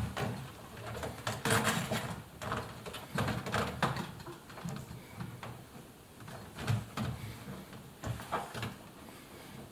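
Irregular handling sounds from work on a front-loading washing machine's rubber door seal: a string of short knocks and clicks with rubbing and scraping in between.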